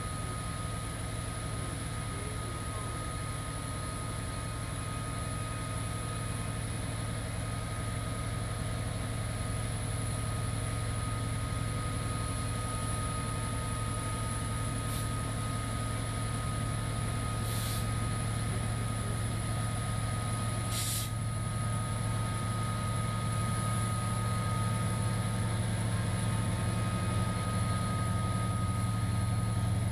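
Kansas City Southern diesel locomotives running with a steady low engine drone, slowly getting louder. Short hisses of air cut in two or three times about midway.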